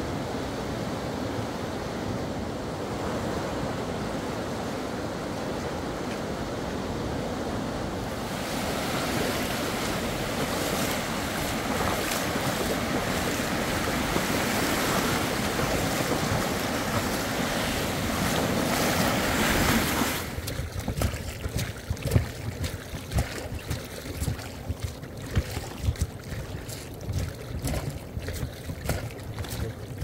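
Sea waves breaking and washing on the shore, with wind buffeting the microphone; the surf swells louder partway through. About two-thirds of the way in it cuts off suddenly to a quieter background with a run of irregular knocks and bumps.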